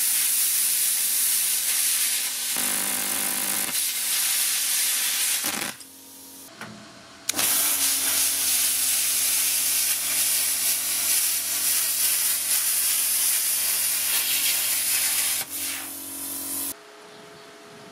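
Parkside Performance PPSK 40 A2 plasma cutter cutting sheet steel: the arc and its air jet give a loud, steady hiss, with a steady hum from the built-in compressor underneath. The hiss breaks off briefly about six seconds in, then runs again and stops about a second before the end, leaving a quieter hum.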